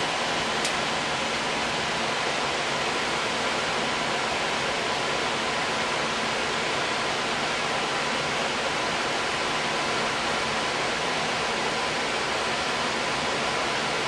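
Gas furnace running with its blower on: a steady rush of moving air with a faint steady hum underneath, and one faint tick under a second in. The furnace is working normally, its temperature rise within specification.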